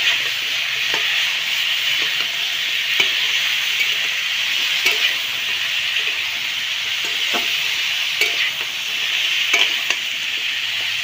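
Mixed vegetables frying in oil in a metal karahi, sizzling steadily, while a metal spatula stirs them with irregular knocks and scrapes against the pan.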